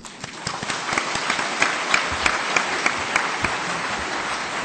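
A large audience applauding, many hands clapping at once. The clapping swells within the first half second, holds steady, and begins to ease near the end.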